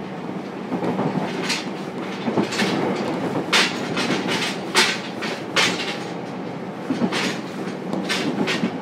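Running sound heard inside the motor car of a JR Kyushu 303 series electric train at speed: a steady rumble and hum, broken by a series of sharp, irregularly spaced wheel clacks over rail joints.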